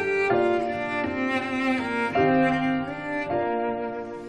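Music of bowed strings, cello-like, playing long held notes that change about once a second.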